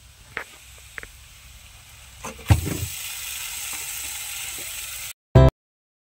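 Pieces of marinated chicken going into a hot wok of masala: a thump about two and a half seconds in, then a steady sizzle of frying. The sizzle cuts off suddenly, followed by a short loud burst and then silence.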